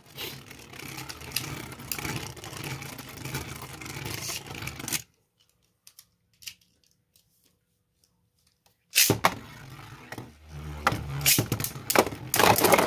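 Plastic-and-metal Beyblade Burst spinning tops whirring on a plastic stadium floor, with light clicks and scrapes. The sound cuts out to near silence for about four seconds midway. Then a fresh launch starts two tops spinning, and they clack against each other and the stadium walls, the knocks getting louder near the end.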